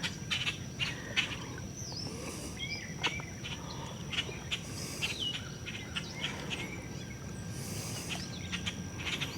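Birds chirping in short, scattered calls that slide in pitch, over a steady high insect drone, with a few light clicks.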